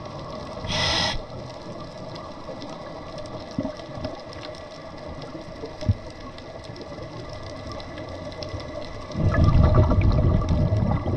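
Scuba regulator breathing underwater: a short hiss of an inhale about a second in, then a loud rush of exhaled bubbles near the end, over a faint steady crackle.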